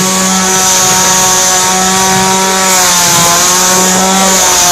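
Two-stroke chainsaw engine running steadily with a loud, even drone; its pitch sags briefly about three seconds in, then comes back up.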